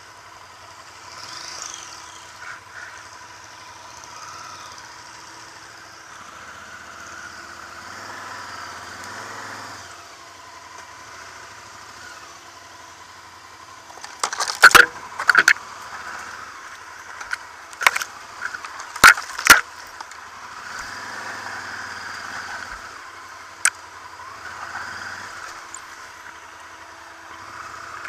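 Honda XL1000V Varadero's V-twin engine running at low revs on a rough forest trail, heard through a helmet camera. About halfway through come several loud, sharp knocks and clatters over a few seconds, with one more a little later, as the bike jolts over the rough ground.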